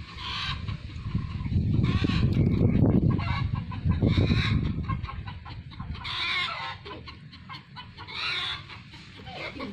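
Chickens clucking in a series of short calls, with a low rumble under them through the first half.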